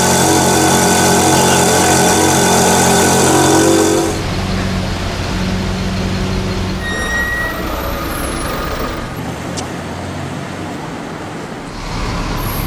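Ferrari V8 exhaust running loud and steady at raised revs, cutting off abruptly about four seconds in. Then city street traffic noise with a low engine idle, a brief high squeak about seven seconds in, and the level rising near the end.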